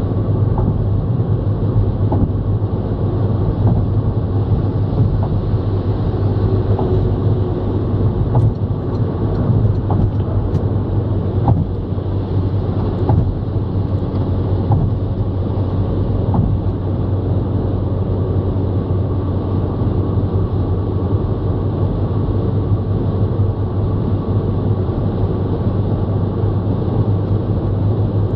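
Steady drone of a car cruising at motorway speed, heard from inside the cabin: engine and tyre rumble with a deep hum, and a few faint ticks in the middle.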